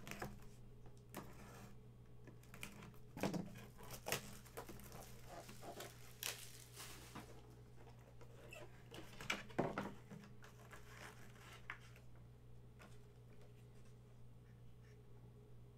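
Collectible packaging being opened and handled: rustling and tearing of wrappers and cardboard with scattered clicks and taps, dying down after about twelve seconds.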